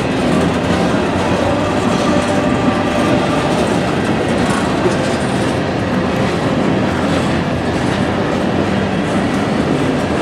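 Empty Norfolk Southern coal hopper cars rolling past close by: steady, loud noise of steel wheels running on the rails, unbroken throughout.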